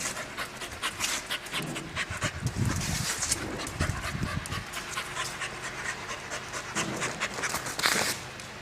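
A brindle Staffordshire bull terrier panting rapidly, with a low rumble about two to four seconds in.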